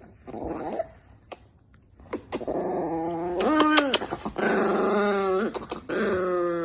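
A Chihuahua growling and whining in long, drawn-out pitched calls, some rising and falling in pitch. They start about two seconds in, after a short sound and a brief quiet spell.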